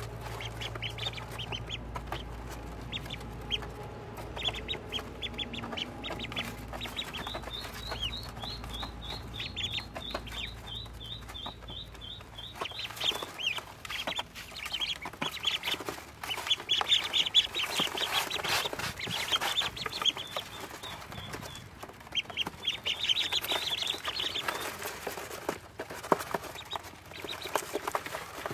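Ducklings peeping, runs of many quick high cheeps, with sharp clicks and taps of bills pecking crumbled feed off a plastic tub.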